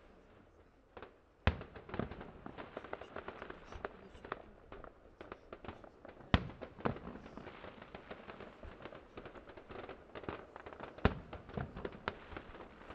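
Aerial fireworks display: shells bursting with three loud bangs, about a second and a half in, around six seconds and around eleven seconds, over a constant rapid crackling and popping of smaller bursts.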